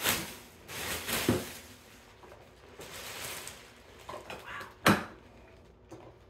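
Plastic packaging wrap rustling and crinkling as it is pulled off an electric unicycle, loudest in the first second or so, with a few small clicks and one sharp knock about five seconds in.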